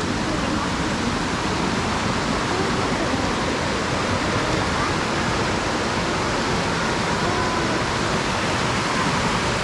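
Steady rushing water of a waterfall, an even, unbroken roar.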